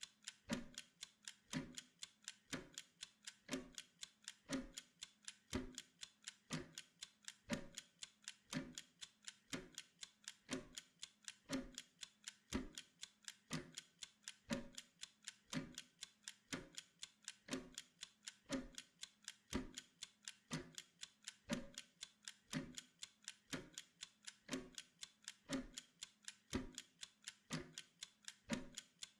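Steady clock-like ticking of a timer, about two ticks a second, on an even, unbroken beat.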